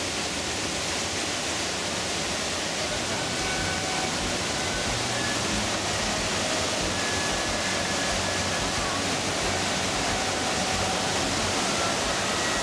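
Whitewater rapids rushing steadily: a dense, even noise of foaming water pouring over rocks and small cascades.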